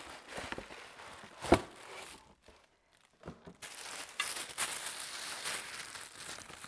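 Cardboard box and white tissue-paper packing rustling as a wrapped watering can is lifted out, with one sharp knock about one and a half seconds in. A little past halfway, the paper settles into steady crinkling as the tissue wrap is handled.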